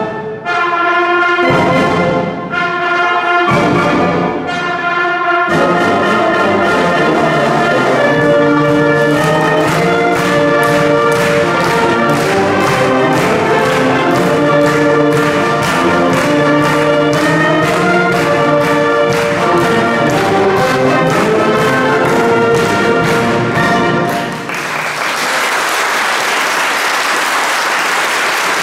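Wind band of trumpets, saxophones, clarinets and tuba playing: a few short chords broken by brief pauses, then the full band playing on to a final chord about 24 seconds in. Audience applause follows to the end.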